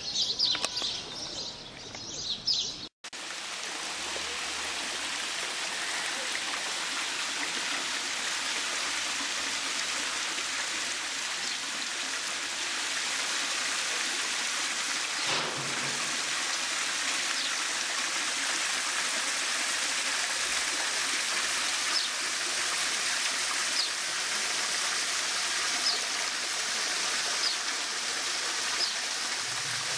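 Birds chirp for the first few seconds. After a sudden cut, water from a small artificial rock waterfall splashes steadily into a pool, with a few faint bird chirps over it near the end.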